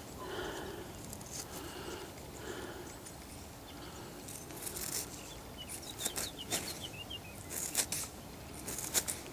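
Metal detector tones repeating about twice a second over a target for the first three seconds. After that come scrapes and sharp clicks as soil and a small find are handled.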